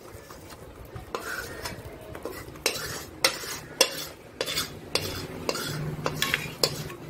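A metal spatula scraping and knocking inside a metal kadai as a cooked sweet mixture is scooped out onto steel plates. Sharp, irregular clinks start about a second in.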